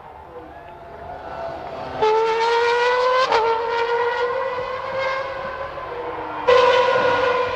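Formula One car engines at high revs. One comes in about two seconds in and climbs in pitch, drops sharply with an upshift and then holds steady; a second, louder one cuts in near the end.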